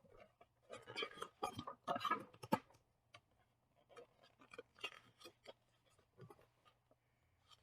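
Paper rustling and clicking as the pages of a picture book are handled and turned: a cluster of rustles in the first couple of seconds, then scattered faint ticks.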